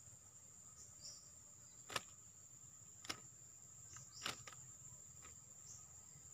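Faint steady high-pitched insect drone, with three sharp clicks about a second apart in the middle.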